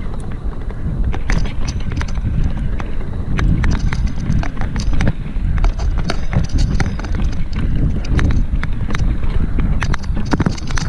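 Mountain bike descending a rough dirt trail: a steady low rumble with frequent, irregular sharp clicks and rattles as the bike jolts over ruts and bumps.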